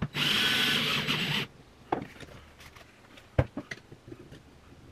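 Cordless drill spinning a dry, larger-diameter valve seat cutter in a valve seat of a Toyota 3VZ-E cylinder head for about a second and a half, taking off the slight raised edge left by a smaller cutter. Then scattered clicks and knocks of tools being handled, one sharp knock a little past the middle.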